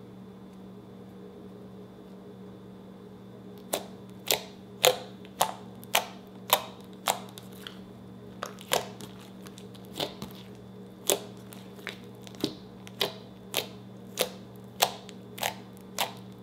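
Slime being poked with fingertips: a run of sharp, wet clicking pops, roughly one every half second, starting a few seconds in. A steady low hum lies underneath.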